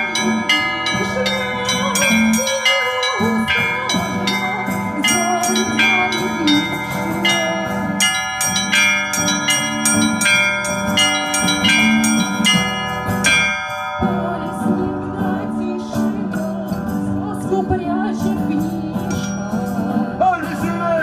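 Russian church bells being rung: rapid strikes on the small high bells over the sustained ringing of larger bells. About two-thirds of the way through the quick strikes stop and the bells ring on.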